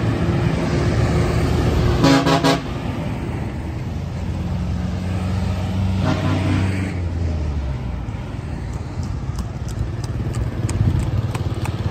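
Motorbike and car engines passing on the street, with a vehicle horn tooting about two seconds in and again around six seconds. From about nine seconds on, horse hooves clip-clop on the asphalt.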